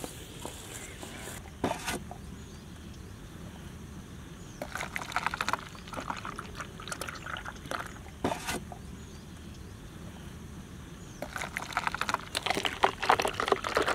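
Chocolate milkshake being poured from a jug into plastic cups, in several spells of liquid splashing and trickling into the cups.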